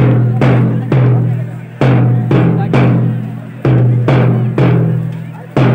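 A deep drum beating a marching rhythm, loud strokes about half a second apart in groups of three, each group followed by a short pause, keeping time for marchers.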